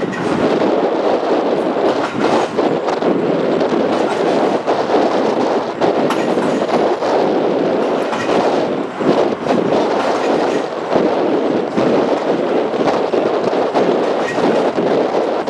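Historic streetcar rolling along the rails of a steel trestle bridge: a steady rumble of steel wheels on track with scattered clicks.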